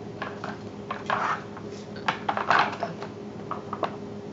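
Plastic clacks, rattles and scrapes of a Nina Ottosson Dog Tornado puzzle feeder as a cat noses and paws its stacked layers round to get at treats. The loudest knocks and rattles come about one second and two to three seconds in.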